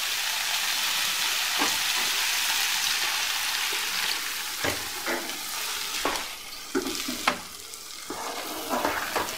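Potato-and-pea masala sizzling in a hot kadai; water is poured in and the sizzle dies down about halfway through. Then a wooden spatula scrapes and knocks against the pan as the curry is stirred.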